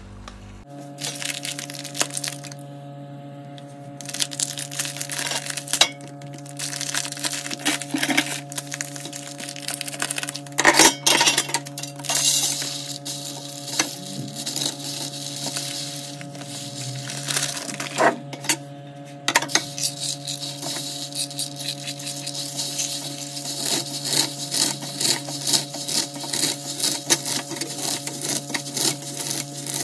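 Vermicelli and coconut powder frying in desi ghee: crackling and sizzling, with a utensil clinking and scraping against the pan and a few sharper clinks. Background music with sustained tones plays underneath.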